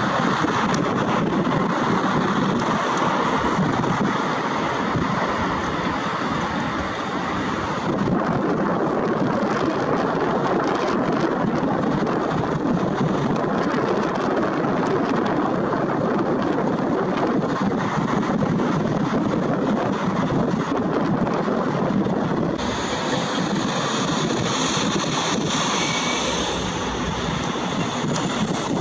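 Distant jet engine noise of a Boeing 777-300ER's GE90 turbofans, a steady rushing roar mixed with wind on the microphone. In the last few seconds a high whine rises as the engines spool up for the takeoff roll.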